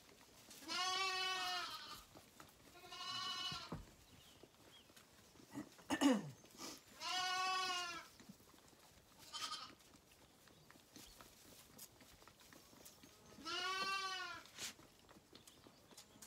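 Zwartbles lambs bleating: four long, steady-pitched bleats of about a second each, with a couple of shorter calls between them, one falling in pitch.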